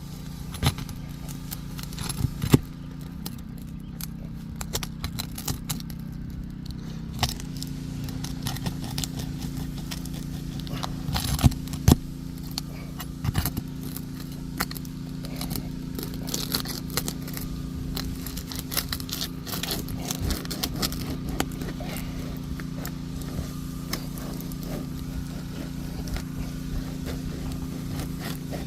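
Crackling, scraping and clicking as a tool is worked under brittle roof shingles to break their seal, the shingles cracking and tearing as they are lifted. A steady low engine hum runs underneath.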